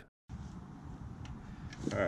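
A moment of dead silence, then steady outdoor background noise with a low rumble and a couple of faint clicks.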